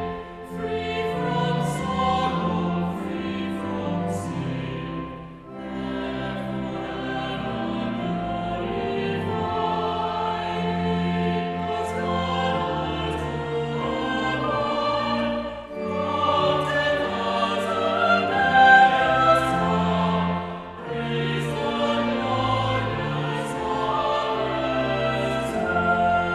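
A choir singing a slow piece of church music, phrase by phrase, with short breaths between phrases about five seconds in, near the middle, and about twenty seconds in.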